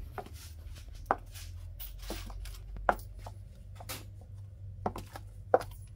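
Stiletto high heels clicking on a hard floor, one sharp click per step at about one a second, some steps louder than others. A low steady hum runs underneath.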